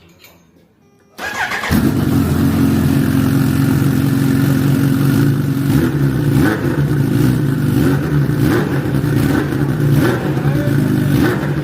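Bimota Tesi H2's supercharged Kawasaki inline-four starting about a second in, then idling steadily through its titanium exhaust with a dB-killer baffle fitted, which takes out much of the piercing high-pitched edge of the open pipe.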